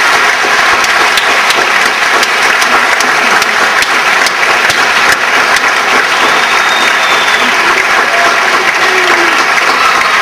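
Theatre audience applauding: dense, steady clapping from many hands.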